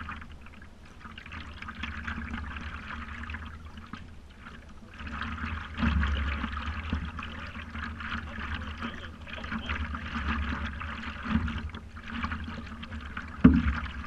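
Water lapping and splashing against the nose of a paddleboard, close to a camera mounted on the board, with a low rumble underneath. The lapping swells and fades, and a single sharp thump comes near the end.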